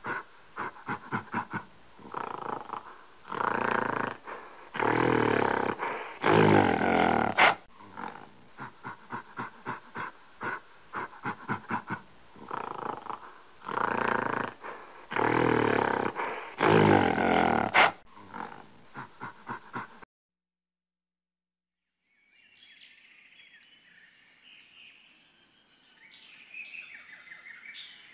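An animal's rapid breathy grunts, about four a second, building into three long loud roars; the same sequence plays a second time. It cuts off abruptly about twenty seconds in, and after a short silence faint bird chirps and a steady high insect buzz come in.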